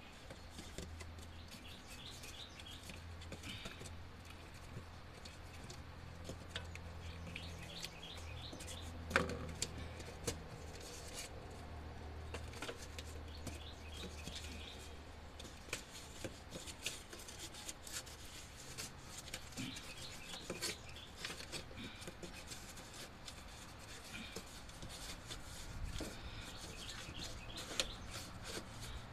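Scattered clicks, taps and rustles of hands working a piece of cardboard and tools into a truck's engine bay, with one louder knock about nine seconds in. Birds chirp now and then in the background.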